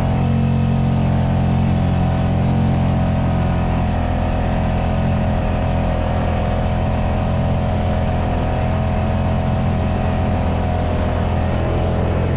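Vehicle engine running at a steady speed, a continuous even drone.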